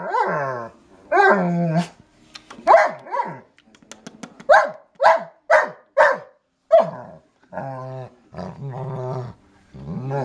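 Pet dog 'singing': a string of about a dozen short howling calls that rise and fall in pitch, with a quick run of sharper, higher calls near the middle and a longer, lower drawn-out call near the end.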